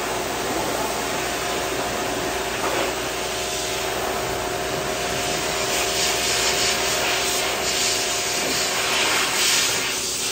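Corded electric pet clippers running with a steady buzz as they shave through a cat's long fur.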